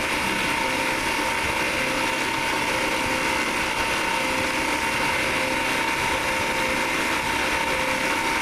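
CNC knee mill spindle running with a small end mill shaving the teeth of a 17-tooth gear held on a rotary-table fourth axis: a steady machining sound with a few held tones, the cut going pretty good.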